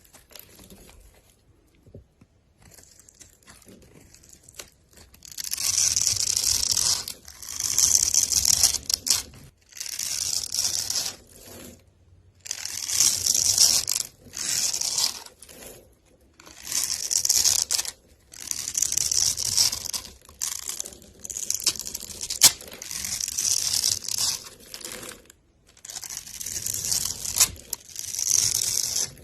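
A knife cutting through bars of soap: about a dozen crisp, crunchy scraping strokes, each a second or two long. They start after about five seconds of near-quiet.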